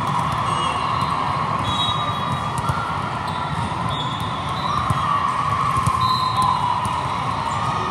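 Busy indoor volleyball hall: a steady din of many voices echoing in the large hall, with volleyballs thumping as they are hit and bounce on the courts, and several brief high-pitched squeaks.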